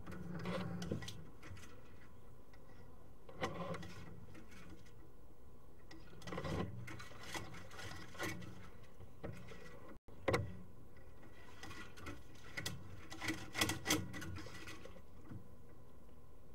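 Sewer inspection camera's push cable and camera head working through a drain pipe: irregular knocks, clicks and short scraping rubs over a steady hiss, with a tight cluster of knocks near the end.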